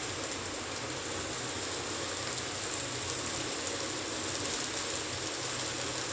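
Steady low sizzling hiss from vegetables frying in oil in a kadhai, with a few faint soft taps as soaked poha is tipped in from a bowl.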